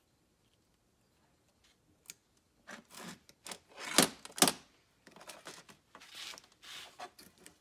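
Alligator-clip test leads and wires being handled: rustling and clicking starting a couple of seconds in, with two sharp clicks about four seconds in, half a second apart.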